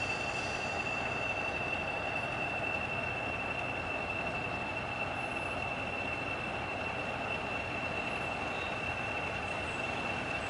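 Class 40 diesel locomotive 40106's English Electric 16-cylinder engine running, with the type's turbocharger whistle: one steady high-pitched whistle over a steady engine noise.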